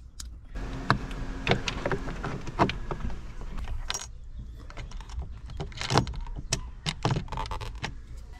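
Irregular small metallic clicks and rattles from a toggle switch and its mounting nut being handled and fitted into a hole in a car's dash panel.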